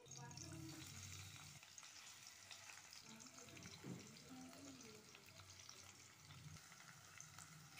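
Faint sizzling of sliced green capsicum and beans frying in oil in a steel pan, with scattered small crackles and a low hum underneath.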